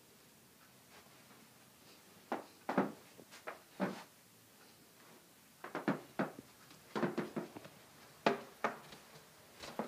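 Irregular short knocks and clicks in several small clusters, beginning about two seconds in: handling and movement sounds as someone walks through the rooms with a phone camera.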